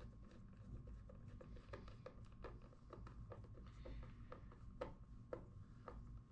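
Faint, irregular clicks and ticks of a screwdriver working a contactor's terminal screw as a stripped wire is clamped in, over a low steady hum.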